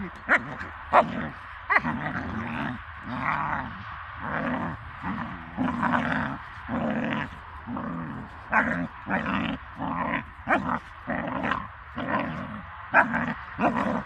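Dog growling and yipping: many short growls and sharp yips, one after another with hardly a pause.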